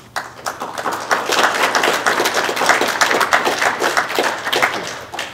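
Audience applauding, many hands clapping at once. It starts suddenly, holds strong for several seconds and dies away near the end.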